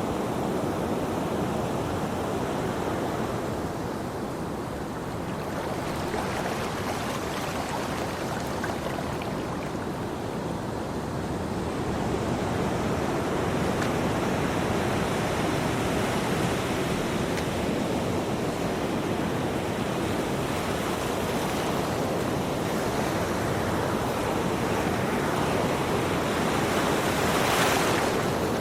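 Ocean surf: waves washing in continuously, swelling and easing slowly, with a louder, hissier wave breaking near the end.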